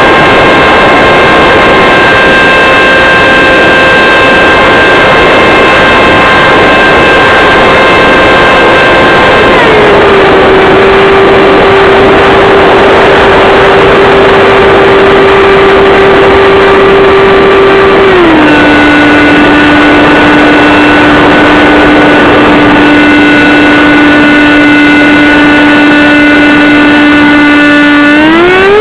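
70 mm electric ducted fan of an RC F-4 Phantom jet, heard through an onboard keychain camera's microphone: a loud, distorted whine over rushing noise. Its pitch steps down twice, about a third and two-thirds of the way in, then rises again near the end as the throttle is changed.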